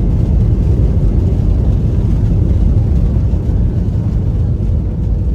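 Steady, loud rumble of a passenger jet's engines and rushing air, heard from inside the cabin during the takeoff climb.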